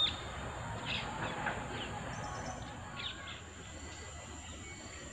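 Birds calling: a few short, high chirps, one at the very start, a couple about a second in and more around three seconds in, over steady background noise.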